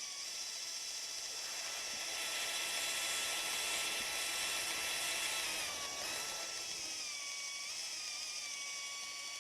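Electric drill spinning a drill-driven fluid transfer pump, a steady motor whine whose pitch sags and wavers a couple of times, around six seconds in and again near eight, as the load changes. The pump is struggling to move the thick beet-juice ballast, which the owner takes for a destroyed drill pump.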